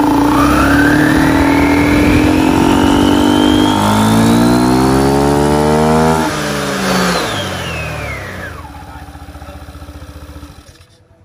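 Yamaha NVX scooter's single-cylinder engine held at full throttle on the stand, the revs and a whine climbing together for about six seconds. The throttle is then released and the pitch falls quickly, the engine settling down and fading out near the end. It is a full-throttle test run of a newly fitted CVT clutch and pulley set, checking how far the belt rides up the pulley.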